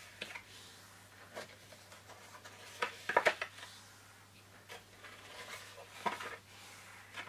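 White card stock being folded by hand along its scored lines and pressed flat, giving scattered crackles and rustles of the card, loudest about three seconds in.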